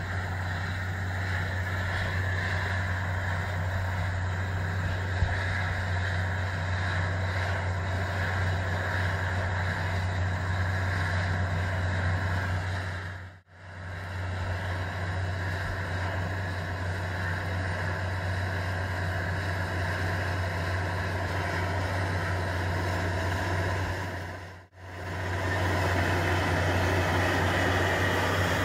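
John Deere 9RT 520 track tractor's diesel engine running steadily under load while it pulls a chisel plow, a constant low drone. It fades out briefly twice, about halfway through and again near the end, then comes back.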